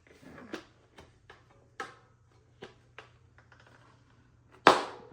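Gravel bike tire being worked onto its rim by hand: scattered light clicks and rubbing, then one sharp, loud snap near the end.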